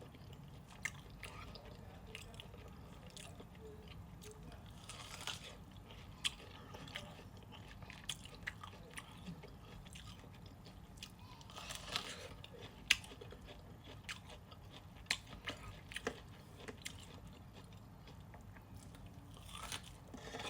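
A person eating with the mouth close to the microphone: quiet chewing and biting with many small clicks, and a few louder, longer smacking bursts about 5, 12 and 20 seconds in.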